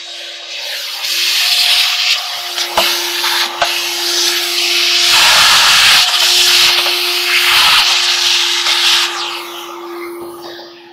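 Vacuum cleaner running as its hose nozzle sucks lint out of a clothes dryer's lint-screen housing and door opening. The motor's steady hum carries under a rush of air that rises and falls as the nozzle is moved, with a few sharp clicks of the nozzle against the housing about three seconds in.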